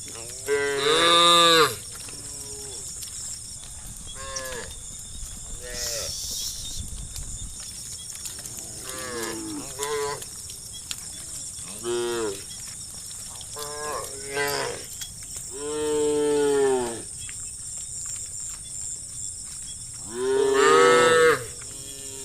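A herd of cattle mooing: about a dozen separate moos at different pitches, some short and some long, with the loudest about a second in, about two-thirds of the way through and near the end.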